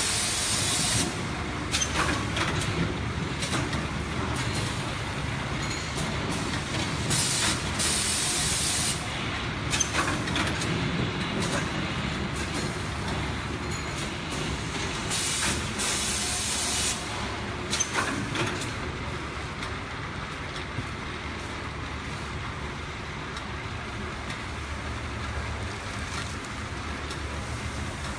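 Pneumatic automatic carton bagging machine running: short bursts of compressed-air hiss about every seven or eight seconds, with sharp clicks over a steady mechanical noise. The hissing bursts stop about two-thirds of the way through, leaving the steady machine noise.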